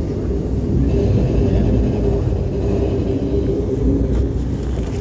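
Steady low rumble of a moving passenger train heard from inside the coach, with a faint steady drone and a few light clicks about four seconds in.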